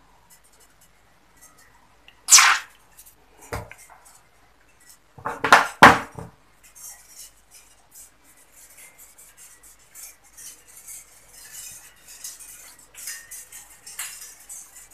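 A metal two-stroke oil pump body being handled: a few sharp metallic clinks in the first six seconds, then a light scratchy rubbing as a cotton swab scrubs inside one of its ports.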